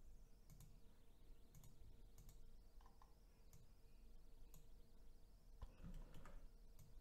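Near silence with faint, scattered computer mouse clicks, a little busier about six seconds in, over a faint steady hum.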